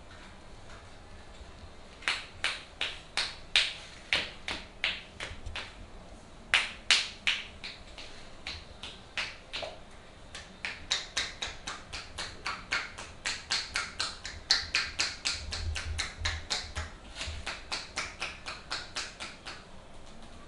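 Percussive hand massage on a forearm: the masseuse's hands, palms pressed together, chop on the arm in a quick run of sharp clapping clicks, about three a second. They start about two seconds in and keep going almost to the end, uneven in loudness.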